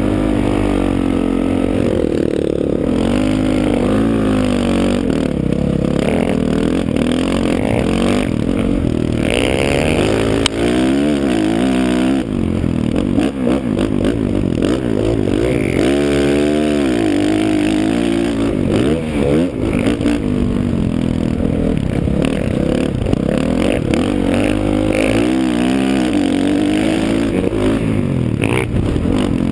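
Dirt bike engine revving up and down again and again as the rider accelerates and eases off, the pitch rising and falling every second or two.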